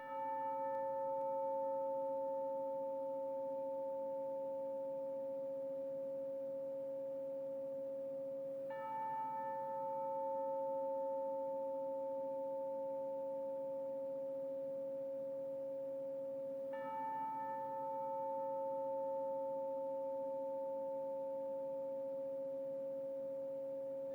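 A bell struck three times, about eight seconds apart, each stroke ringing on with a steady, pure tone that barely fades before the next.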